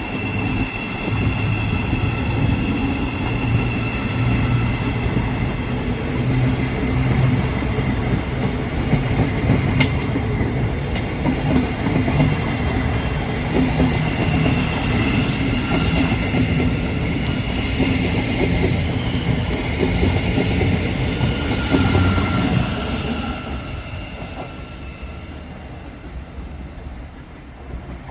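Thameslink Class 700 electric multiple unit moving along the station tracks, a steady whine from its traction equipment over rumbling wheel-on-rail noise. It fades away from about 23 seconds in.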